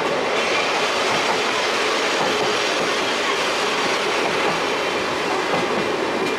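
Steady running noise of the Sagano Scenic Railway sightseeing train's wheels on the rails, heard from aboard a moving carriage.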